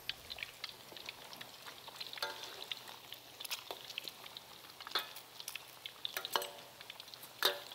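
Crab omelet deep-frying in a wok of hot oil, a steady crackle and sizzle as the egg shell fries crisp around the crab filling, with scrapes and clinks of a metal ladle and spatula working it in the wok.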